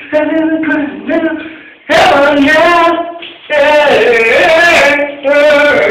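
A man singing loudly in a shower, half shouting, in long held phrases. A softer start gives way to three loud phrases about two, three and a half and five seconds in.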